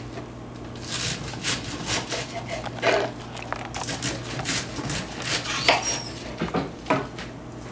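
A knife cutting cabbage on a cutting board while the leaves are broken and pulled apart: irregular crunches and knocks of the blade and the leaves, over a steady low hum.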